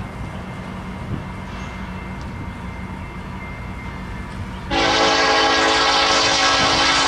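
Diesel locomotive's air horn. Under the steady rumble of the engines, a long, loud blast starts abruptly about two-thirds of the way in and is still sounding at the end.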